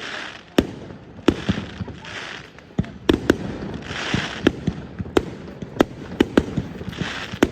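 Fireworks going off: a rapid, irregular run of sharp bangs from exploding shells, with softer hissing between them.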